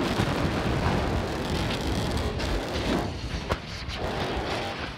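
Starship SN8's Raptor rocket engines firing in the landing burn, a loud steady rumbling noise. About three seconds in the rumble drops away to a lower one with scattered crackles and pops as the vehicle hits the pad too hard and explodes.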